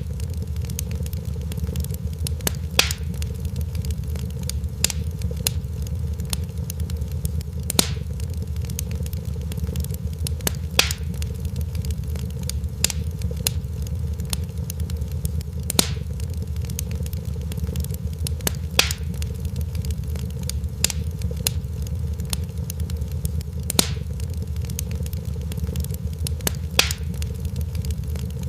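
Fire crackling in a fireplace: sharp pops every second or two over a steady low rumble.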